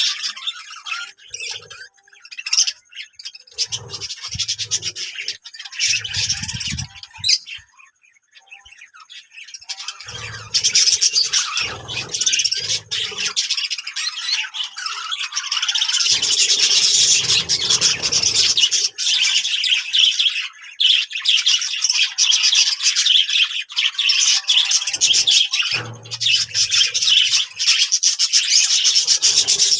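A flock of Australian parrots chattering, chirping and squawking, thin at first and much denser and louder from about ten seconds in, with a few short low thumps mixed in.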